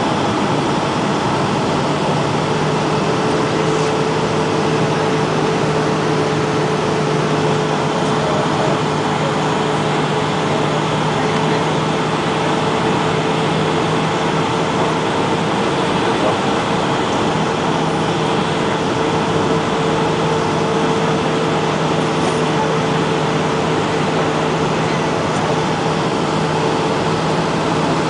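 Steady cabin noise of a Boeing 757 on approach, heard from a window seat beside the wing-mounted jet engine: an even rush of engine and airflow noise with a low hum. A steady mid-pitched whine comes in a couple of seconds in and holds.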